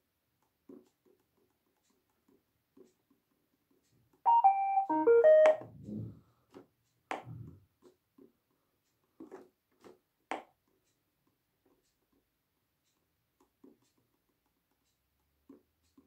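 Roomba 782e robot vacuum beeping a quick run of electronic tones that step mostly downward, about four seconds in, followed by soft clicks of its panel buttons being pressed.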